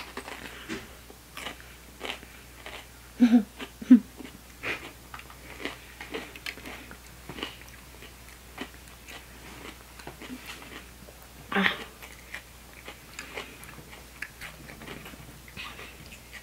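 A raw jalapeño pepper being bitten and chewed: crisp crunches and mouth noises scattered through, with louder bites about three and four seconds in and again near twelve seconds.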